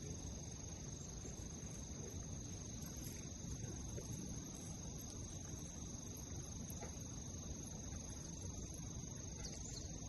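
Insects trilling steadily, a continuous high-pitched tone, over a low rumble of outdoor background noise.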